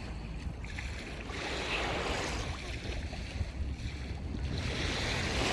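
Sea waves washing onto the shore, swelling twice, with wind rumbling on the microphone.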